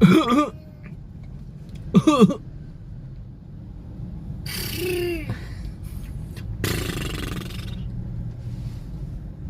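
A young child making short throaty pretend coughs, twice in the first few seconds, then a falling voiced sound and a breathy burst, over the steady low hum of a car cabin.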